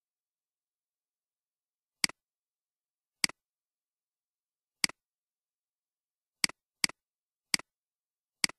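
Seven computer mouse clicks at uneven spacing, with nothing heard between them. Each is a sharp click followed at once by a softer one, a button press and release. Two of the clicks come close together about two-thirds of the way through.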